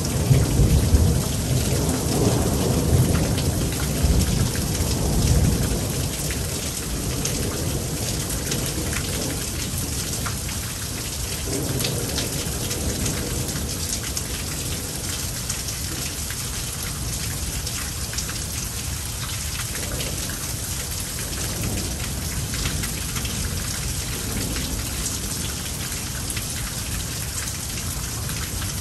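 Heavy rain falling steadily in a thunderstorm, with a long rolling rumble of thunder through the first several seconds that fades away, leaving the rain alone.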